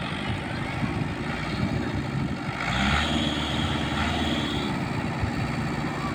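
Engine of a vehicle working hard to pull a loaded truck out of a rut, with a steady rapid chugging; it grows louder and a higher whine joins for about two seconds near the middle.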